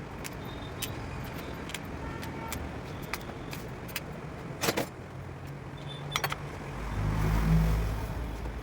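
A few sharp metallic clinks over a steady low hum, then a motor vehicle engine rumbling, loudest about seven to eight seconds in.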